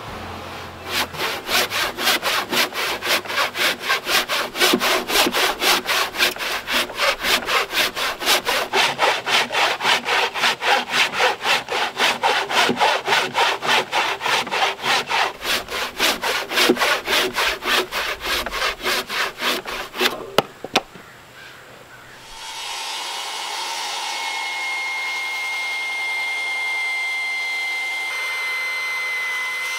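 Handsaw cutting across a squared timber in quick, even back-and-forth strokes for about twenty seconds, ending in a couple of sharp clicks. A few seconds later a cordless circular saw starts and runs with a steady high whine.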